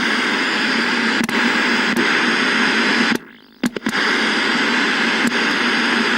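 Television static: a steady hiss of white noise with a low buzzing hum beneath it, broken by a few faint clicks. It cuts out for about half a second some three seconds in, then comes back.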